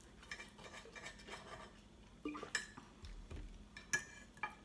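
Knife and fork scraping and clinking on plates as beef is cut and eaten, a run of small clicks with a few sharper clinks, the loudest about four seconds in.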